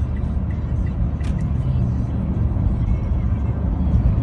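Steady low rumble of a car or truck on the move.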